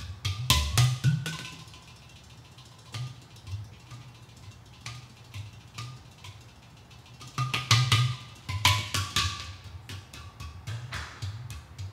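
Hand drumming on custom-made ceramic pot drums (udu- and ghatam-style clay vessels): deep bass tones from the pots' openings under sharp slaps and taps. Quick flurries of strokes come about half a second in and again about two-thirds of the way through, with sparser single strokes between.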